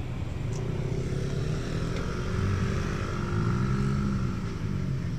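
Road traffic: a steady low engine rumble, with a motor vehicle passing close by about three to four seconds in, its engine note rising and then falling.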